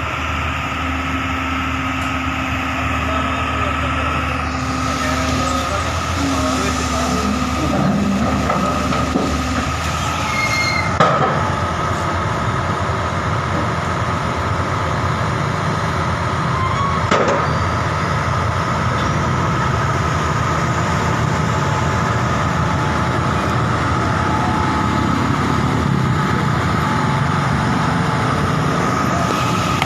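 Excavator's diesel engine running steadily, with a constant high whine over it. Two sharp knocks ring out, about eleven and seventeen seconds in.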